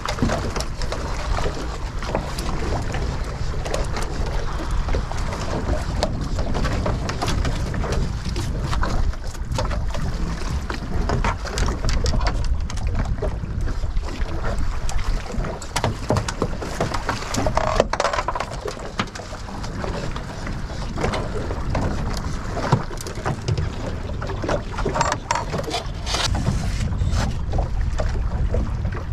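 Wind on the microphone and water lapping against the hull of a small fibreglass skiff, with scattered knocks and clicks of a landed fish being unhooked with pliers and handled on the deck.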